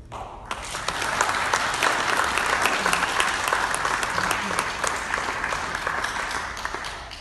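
A small seated audience clapping, starting suddenly and dying away near the end.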